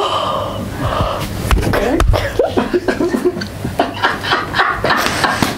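A man's wordless vocal sounds, strained groans, panting breaths and short breathy half-laughs, from the pain of tending an opened blister on the sole of his foot.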